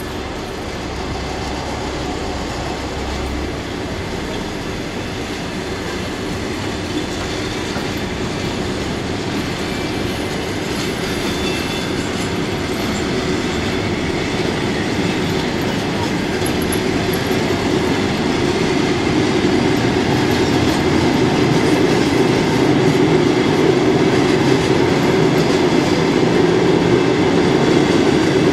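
Russian Railways passenger coaches rolling slowly along the station track, wheels clattering on the rails, the sound growing steadily louder.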